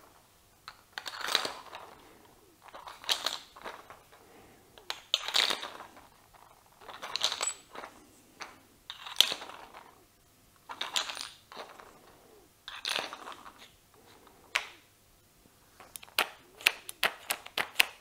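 Steel drill bits handled in a 3D-printed PLA drill holder: a short scraping rattle of metal on plastic about every two seconds, then a quick run of sharp clicks near the end.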